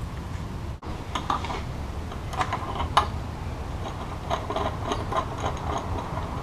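Small metallic clicks and clinks of hand tools and parts being handled while working on a motorcycle, coming in short clusters with the sharpest click about three seconds in, over a steady low rumble.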